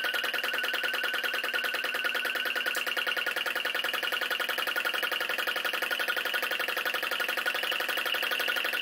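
Small flame licker vacuum engine running fast and driving a belted stepper-motor generator under electrical load: a steady whine over a rapid, even mechanical beat.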